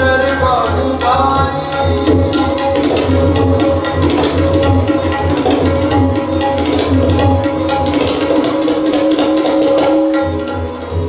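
Live Hindustani classical accompaniment: tabla playing a steady run of strokes under sitar, with held notes and a few sliding notes near the start.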